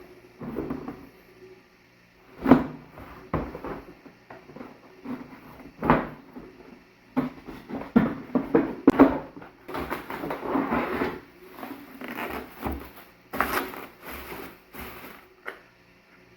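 Unboxing noises: a cardboard box and its packaging being handled and opened, with irregular knocks and thumps and stretches of rustling.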